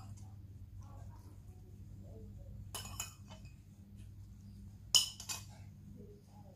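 Metal spoon clinking against ceramic plates and bowls while eating: two sharp clinks about three seconds in, and a louder clink with a quieter follow-up about five seconds in.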